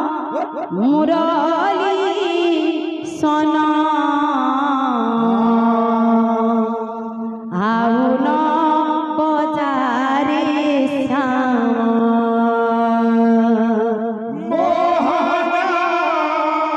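Odia kirtan singing: a male voice amplified through a microphone, moving in ornamented, wavering phrases and twice settling on a long held note.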